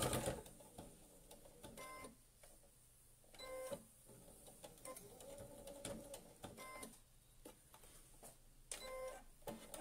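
Brother electronic sewing machine stitching in short bursts of a few stitches, about four times, with near quiet between.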